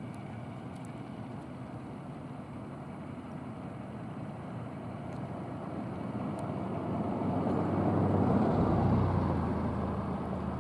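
A motor vehicle passing close by. Its low engine rumble swells to a peak about eight seconds in, then fades, over a steady background hum.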